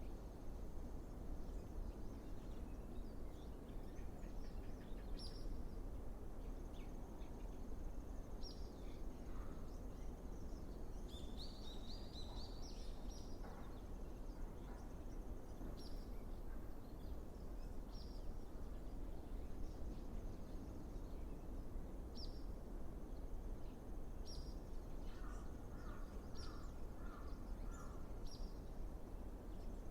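Outdoor ambience with a steady low background rumble, over which birds give short high chirps every couple of seconds. A quick run of notes comes about eleven seconds in, and a row of about five lower, evenly spaced notes comes a little after twenty-five seconds.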